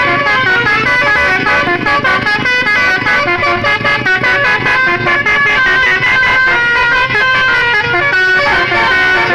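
Indonesian telolet multi-tone bus horns from several buses sounding at once, trading horn calls. Their stepped, tune-like tones overlap and keep changing pitch without a pause.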